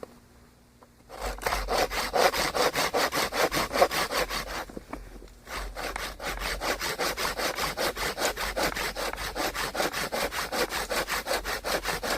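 Hand saw cutting across a sycamore tomahawk handle blank in quick, even back-and-forth strokes. The sawing starts about a second in, stops briefly near the middle, then resumes.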